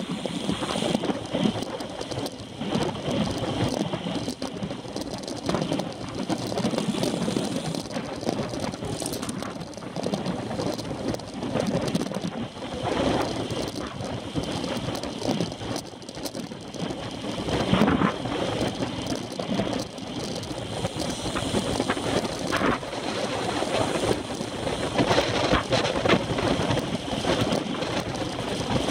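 Wind rushing over the microphone of a handlebar-mounted camera on a road bike ridden at racing speed, with tyre and road noise beneath, rising and falling in loudness.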